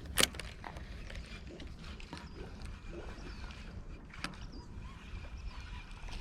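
Steady low rumble of wind on the microphone, with a loud sharp click about a quarter second in and a smaller one about four seconds in.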